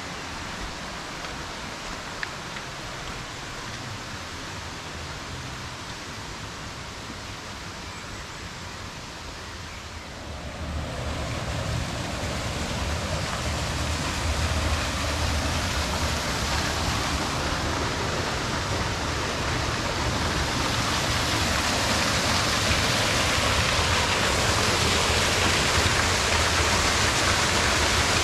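Rushing water, a steady noise that jumps louder and fuller about ten seconds in, then keeps slowly building.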